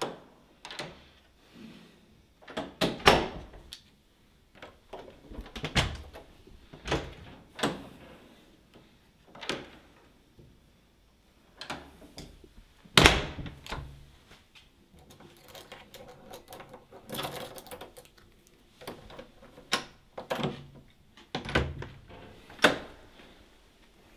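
Irregular sharp clicks and knocks of hard objects being handled, roughly one a second, with a louder knock about three seconds in and another about thirteen seconds in, and a busier run of small clicks around sixteen to eighteen seconds in.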